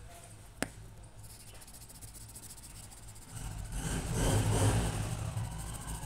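Graphite pencil rubbing on paper as it shades, coming in about halfway through and swelling before easing off, over a low steady hum. A single sharp click sounds near the start.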